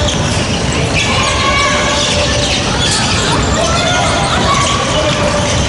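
Basketball game sound in a gymnasium: a ball dribbled on the hardwood court amid players' and bench calls, echoing in the hall over a steady crowd hum.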